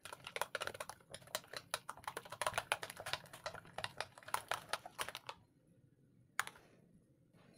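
Metal spoon stirring a thin mayonnaise-and-milk sauce in a glass bowl, knocking against the glass in a fast run of light clicks. The clicking stops about five seconds in, and one more single tap follows a second later.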